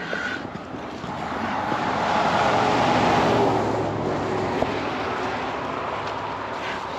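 A motor vehicle passing by, its sound swelling to a peak about three seconds in and then slowly fading away.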